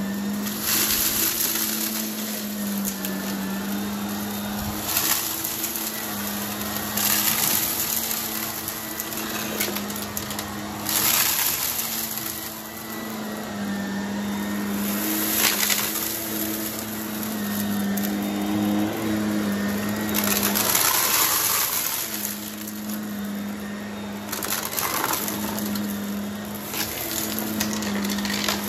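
Vacuum cleaner running steadily, with crunching, rattling surges every few seconds as crunchy debris is sucked up.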